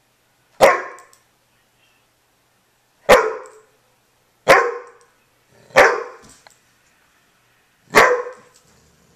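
A white curly-coated dog barking five times, single sharp barks a second or two apart: demand barks at the dogs occupying the couch it wants to get up on.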